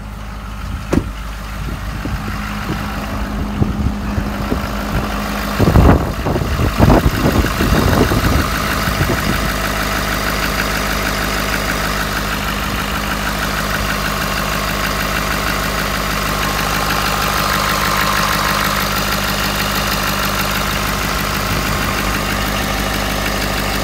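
Ford 6.7 Power Stroke V8 turbodiesel idling steadily, running with its turbo's cold-side intake hose refitted after it blew off, and making no boost. A few loud knocks and bangs come about six to eight seconds in, after which the engine sounds louder and closer.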